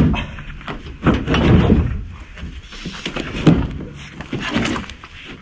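Heavy timber beams scraping and knocking against one another and the truck bed as they are slid into the back of a small truck, with a loud knock at the start and another about three and a half seconds in.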